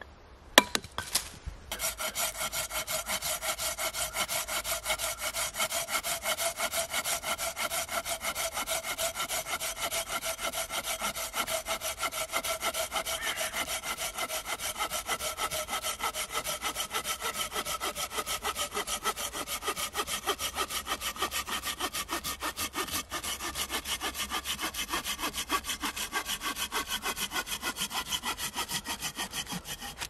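A Mora Lightweight Axe bites into wood with a sharp strike about half a second in. From about two seconds on, a Silky Pocketboy Outback folding saw cuts through a branch in rapid, even back-and-forth strokes, with a steady ringing tone from the blade under the strokes.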